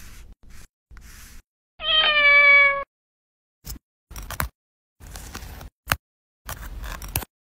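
A cat meowing once, a single meow about a second long that falls slightly in pitch. Short clicks and rustles of handling come before and after it.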